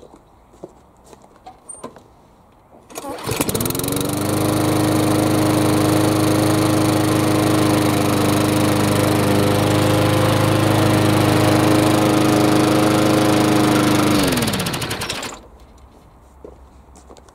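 A freshly reassembled Flymo 500 petrol lawn mower engine starts about three seconds in and runs at an even, steady speed for about eleven seconds, not racing away. It is then switched off, its pitch falling as it winds down.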